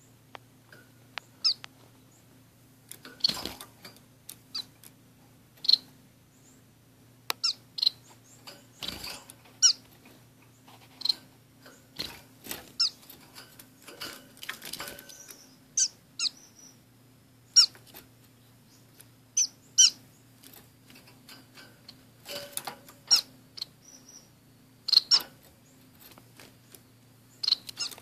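Small caged finches, orange-cheeked waxbills and a society finch, giving short, high chirps at irregular intervals, with brief clicks and rustles from hopping and wing flutters in the cage.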